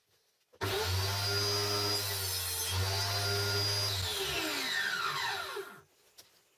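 An electric workshop power tool switched on, running at a steady speed for about three seconds with a brief dip midway, then switched off and winding down with a falling whine until it stops.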